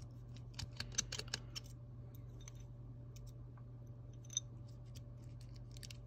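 Small sharp metal clicks of a precision screwdriver working tiny screws out of an iPhone 8's internal brackets: a quick run of clicks about a second in, then a few single clicks later, over a steady low hum.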